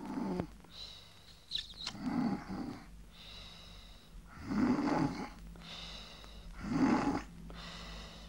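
Cartoon snoring: deep snores about every two and a half seconds, each followed by a thinner, high hissing exhale.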